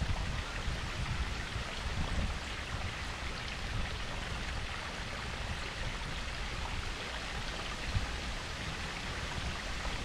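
Water from a garden koi-pond waterfall and babbling brook, a steady splashing rush with a deep rumble underneath.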